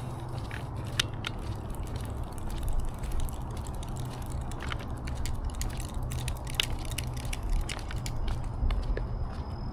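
Footsteps on a park trail: irregular clicks and crunches of steps, over a steady low rumble.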